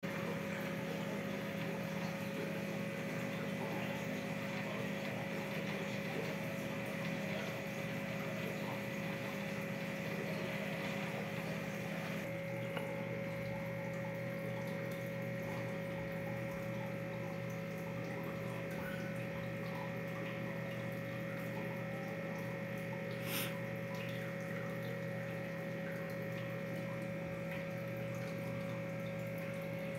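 Aquarium pump humming steadily over the trickle of circulating water. The hum shifts slightly about twelve seconds in, and there is a single short click about two-thirds of the way through.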